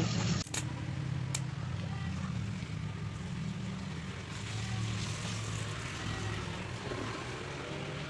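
A click about half a second in, then a rewound microwave oven transformer humming steadily at mains frequency as it powers up, with a second click a second later. The hum shows the homemade spot welder is live and driving current through a thin steel wire shorted across its cable ends.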